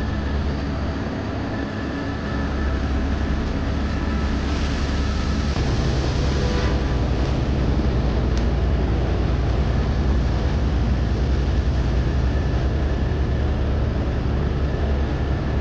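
Helicopter in flight, heard from inside the cabin: a steady, loud low drone of rotor and engine under a constant rushing noise, with a short swell of higher hiss about five to seven seconds in.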